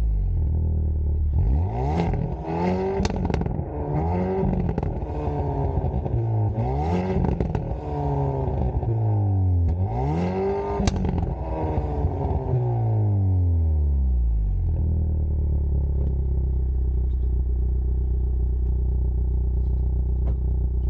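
Stock Hyundai Veloster N's turbocharged 2.0-litre four-cylinder heard at the exhaust, revved up and let fall several times, with sharp crackles and pops during the revs. About 15 seconds in it drops back and settles to a steady idle.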